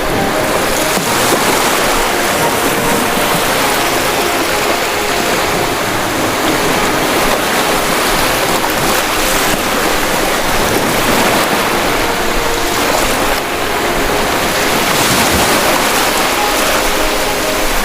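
Ocean surf: a loud, steady rush of waves washing on the shore.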